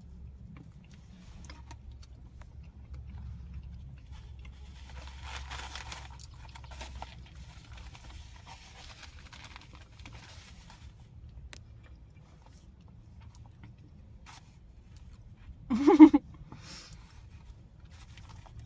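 Quiet eating sounds of chili and cornbread: soft chewing and crunching over a low hum, with one brief, loud vocal sound near the end.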